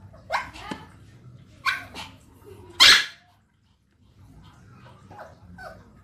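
Three sharp, bark-like animal calls, the third the loudest, then fainter short calls near the end.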